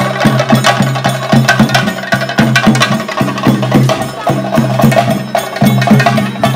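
Theyyam ritual drumming: chenda drums beaten with sticks in a fast, dense rhythm of sharp strokes over a steady held tone.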